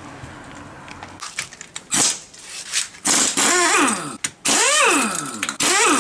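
Power tool removing the wheel's lug nuts, with some clatter early on, then its motor whine spinning up and winding down several times, about once a second.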